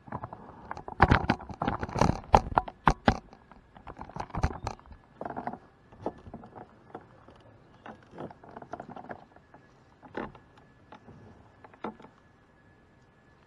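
Irregular knocking, clattering and scraping of gear against a kayak's plastic hull, loudest and thickest in the first few seconds, then thinning out to scattered knocks.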